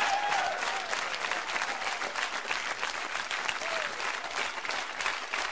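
Studio audience clapping steadily, with a brief shout or whoop now and then.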